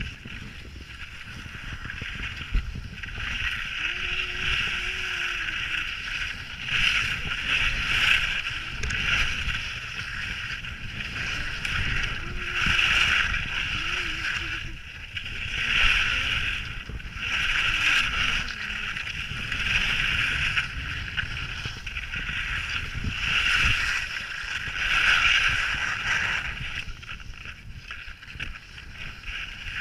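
Skis scraping over hard, icy snow through a series of mogul turns, a rough hiss that swells and fades every second or two with each turn, over a low rumble of wind on the camera microphone.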